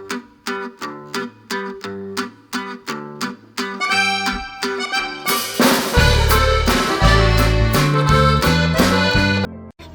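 Background music: upbeat plucked-string notes about two a second, joined by a fuller band with heavy bass about five seconds in, stopping suddenly near the end.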